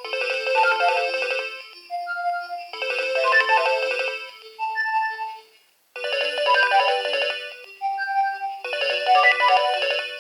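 A Nokia 2300 mobile phone playing a ringtone melody through its small loudspeaker: quick runs of notes alternating with single held notes. About six seconds in it breaks off briefly, then the melody starts over.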